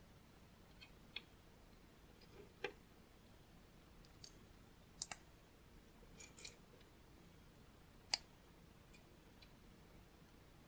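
Small plastic LEGO pieces clicking as they are picked up, handled and snapped together by hand: about ten scattered sharp clicks, the loudest about eight seconds in.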